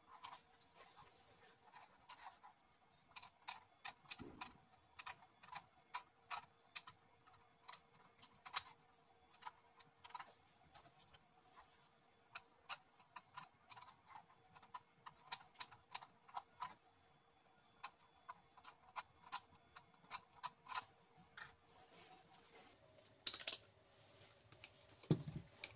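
Irregular light clicks and taps, one or two a second, from handling the woofer while its voice coil is tested with a multimeter, over a faint steady hum. Near the end comes a louder brief scrape, then a low knock.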